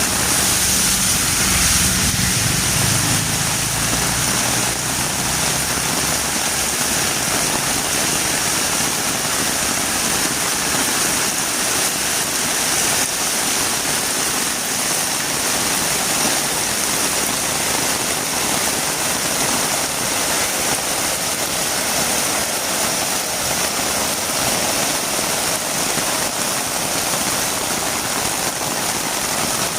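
Heavy rain falling steadily, an even hiss. A vehicle engine hums low under it at the start and fades out after about five seconds.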